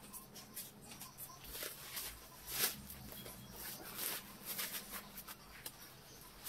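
Irregular light clicks and rustles, the loudest about two and a half seconds in, over a faint low steady hum.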